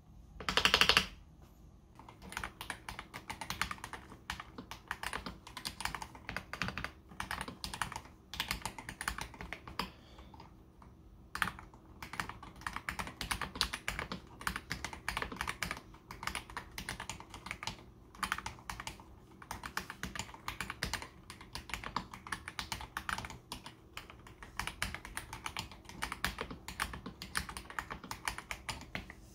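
Typing on a mechanical keyboard with stock, unlubed AKKO CS Jelly Black linear switches: continuous runs of keystrokes with a few short pauses. A short loud burst of noise comes about a second in, just before the typing starts.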